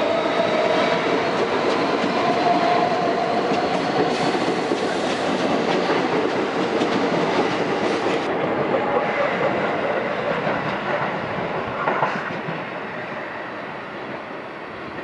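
R160 Siemens subway train accelerating out of the station past the platform, with the rising whine of its traction motors over wheels clattering on the rail joints. The sound fades over the last few seconds as the rear cars pull away.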